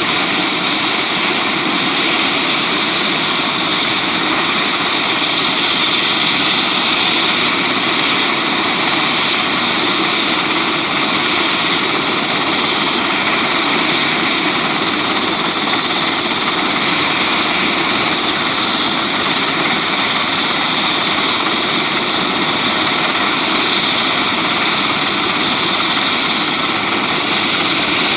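Eurocopter EC145 helicopter running on the ground with its main rotor turning: a steady, loud turbine whine over rotor noise, unchanging throughout.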